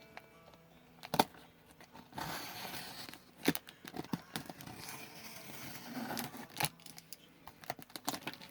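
Cardboard package being cut and torn open with a blade: scraping, tearing and crinkling of cardboard and tape, broken by a few sharp clicks and knocks.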